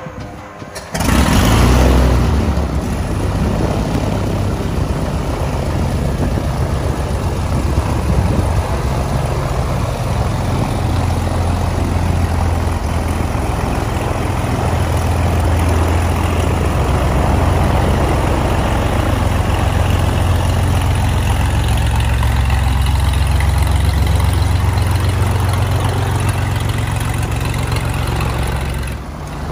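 Cessna L-19 Bird Dog's Continental O-470 six-cylinder engine catching on startup about a second in with a sudden loud surge, then running steadily with a deep hum as the propeller turns.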